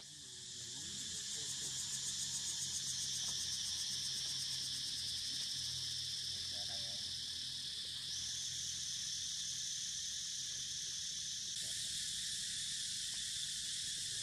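A steady, high-pitched chorus of insects shrilling, with a rapid pulsing in its first few seconds.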